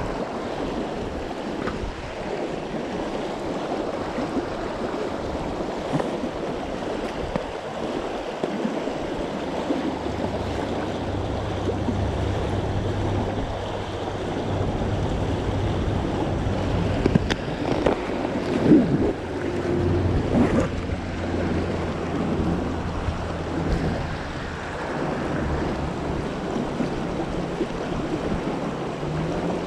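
River water running steadily over a long, shallow riffle on the Madison River, with some wind on the microphone. A faint low steady hum runs underneath from about ten seconds in until near the end.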